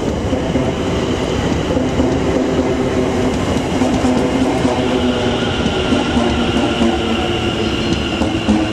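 London Overground Class 710 Aventra electric train arriving at the platform: wheel-on-rail rumble with a steady electric whine from its traction equipment.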